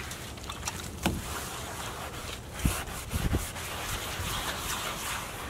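A cloth rubbing and scrubbing the inside of a plastic (HDPE) canoe hull, with a few light knocks.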